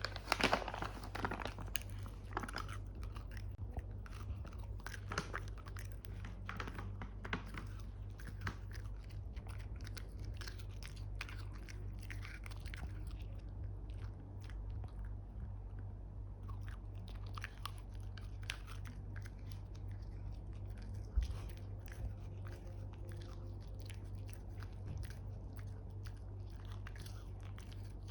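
A dog chewing and crunching shark jerky, with many short crisp bites throughout and a steady low hum underneath.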